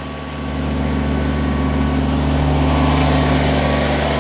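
Kubota BX23S compact tractor's three-cylinder diesel engine running steadily, getting louder about half a second in.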